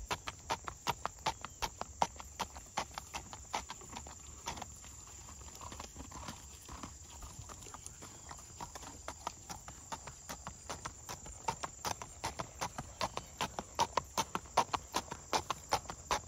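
A ridden horse's hooves striking a paved path at a walk, an even clip-clop of about four hoof strikes a second. The hoofbeats fade in the middle as the horse moves off and grow loud again near the end as it comes back past.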